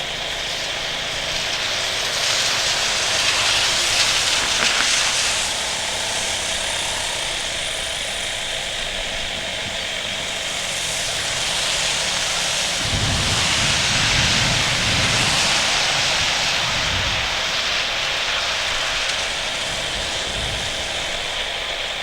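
Boeing 737-800's CFM56 jet engines at takeoff power, a loud steady roar that swells twice, with a low rumble coming in about halfway through.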